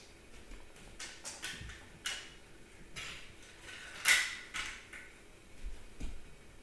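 Light clicks and taps of small plastic toys being handled, with the lid of a plastic toy box snapping shut about four seconds in, the loudest click.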